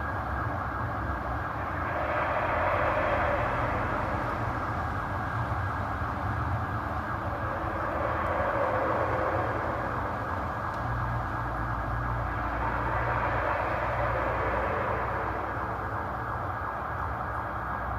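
An unexplained droning noise from the sky, swelling and fading in long waves about every five seconds over a steady low hum.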